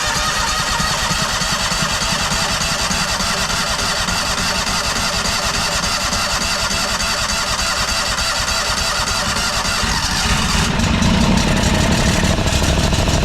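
John Deere 757 zero-turn mower's engine running steadily, growing a little louder and deeper about ten seconds in.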